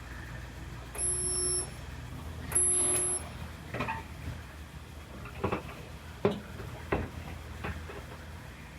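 Welder firing in two short bursts of under a second each while welding a replacement rear body panel onto a car body, followed by several sharp metal clicks and knocks.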